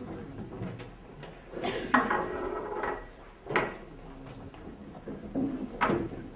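Knocks and clatter of objects being handled on a desk: a longer stretch of clattering about two seconds in, then a few single sharp knocks.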